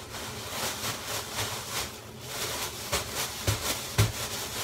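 Doubled plastic grocery bags holding flour and cornflakes crinkling and rustling as they are shaken to mix the chicken coating. There are two dull thumps near the end.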